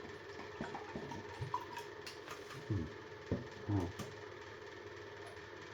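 Quiet handling sounds: scattered light clicks and a few soft low thumps, the strongest in the middle, over a faint steady hum.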